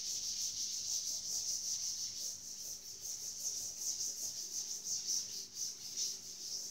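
A chalkboard duster wiping across a blackboard in rapid back-and-forth strokes, a steady pulsing scrubbing hiss as the chalk writing is erased.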